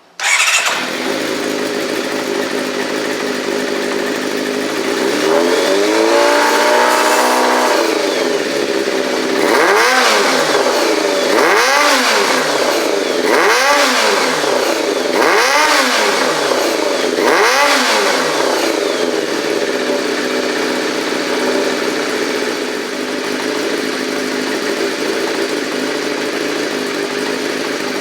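Kawasaki Zephyr inline-four engine running through a Pastel-Road Snake aftermarket silencer. It starts abruptly and idles, is revved once for a few seconds, then is blipped five times in quick succession, peaking around 7000 rpm, before settling back to a steady idle. The engine is freshly serviced and running smoothly.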